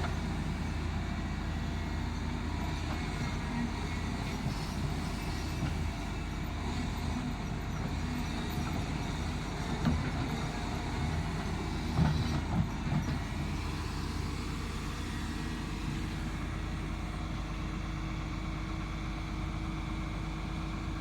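Excavator's diesel engine running steadily, with a few short knocks about ten and twelve seconds in.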